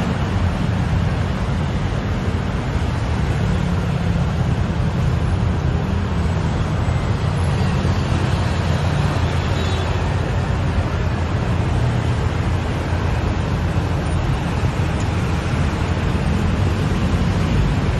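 Steady city road-traffic noise: a continuous low rumble of passing vehicles, even in level throughout.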